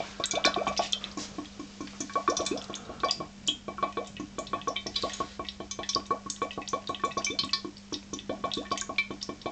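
HHO (hydrogen-oxygen) gas from an electrolysis cell bubbling up through water: a rapid, continuous patter of small bubble pops. A steady low hum runs underneath.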